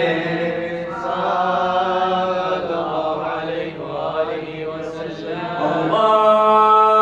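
Unaccompanied male voice chanting a melodic devotional mawlid refrain, drawn-out notes bending slowly in pitch, with a stronger held note starting about six seconds in.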